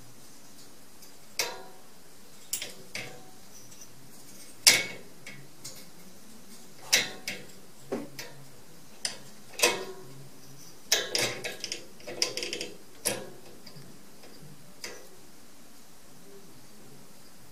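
Metal slide-bolt latch and wire door of a cage clicking and rattling as a cat paws and bites at the bolt: irregular sharp metallic clicks, a quick run of them about two-thirds of the way through, stopping for the last few seconds.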